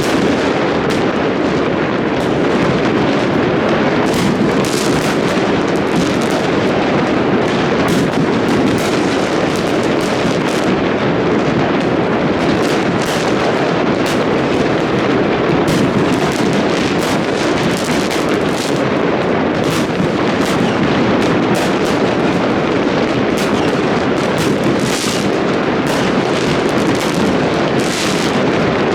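Dense, unbroken barrage of New Year fireworks: countless bangs and crackles overlapping into a steady rumble, with sharper cracks standing out every second or so.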